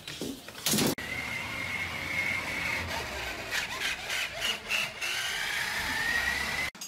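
A single loud thump, then the steady electric-motor whine of a motorised toy dump truck driving along. The pitch wavers, rises slightly near the end and cuts off suddenly.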